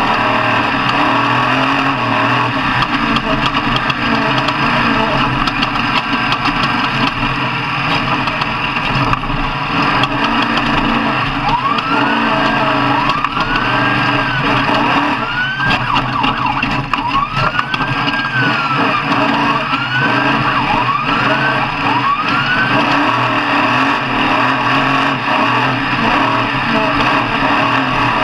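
Off-road truck engines running loudly under heavy noise. From about eleven seconds in, a siren-like tone rises and falls about seven times over roughly ten seconds, then stops.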